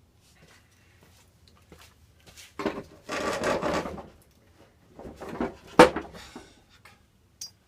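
Wooden things being shifted and handled: a scraping, clattering slide lasting about a second and a half, then more rattling with a single sharp knock a little before six seconds in.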